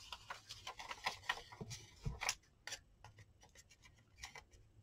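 Baking paper crinkling as it is handled and trimmed with scissors: faint, irregular crinkles and snips.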